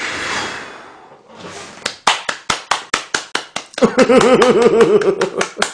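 A long puff of breath blowing out cake candles, fading over about a second. Then quick, steady hand clapping, with a man's wavering laugh over the last couple of seconds.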